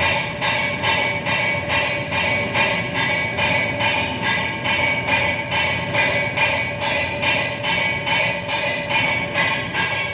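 Steady, rapid banging, about three to four knocks a second, each with a ringing metallic tone, going on without a break.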